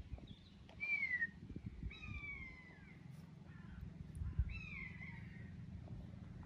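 Common buzzard calling: three drawn-out, mewing calls, each sliding down in pitch, about a second apart at first and then after a longer gap.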